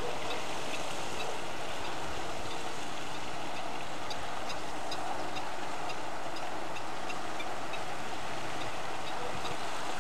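Steady wind noise on the microphone, an even rush that does not change. Faint short high chirps are scattered through it.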